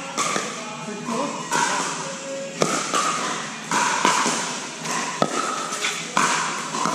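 Pickleball rally: several sharp pocks of paddles striking the hard plastic ball, echoing in a large indoor hall, over background voices and music.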